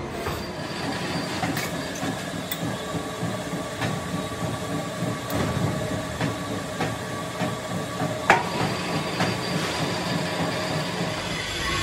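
Metal lathe running, a steady mechanical hum with faint whining tones from its spindle and gears and scattered light clicks; one sharp clack a little over eight seconds in.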